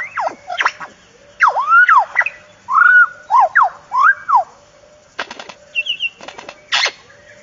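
A run of bird calls, each a loud note that swoops up and falls back, repeated several times in quick succession, followed near the end by a few sharp clicks or knocks.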